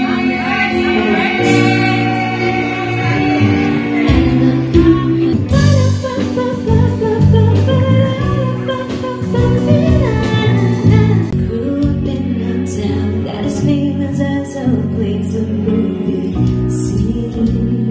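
Music with singing over a steady instrumental backing, changing abruptly about five seconds in.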